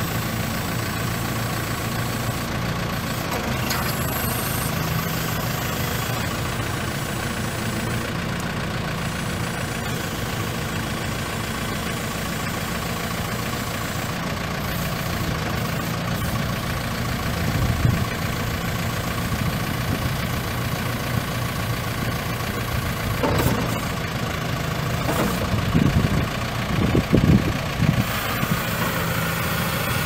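Perkins four-cylinder diesel engine of a 1999 JCB 210S backhoe loader running steadily. A few louder knocks and irregular bursts come in over the last several seconds.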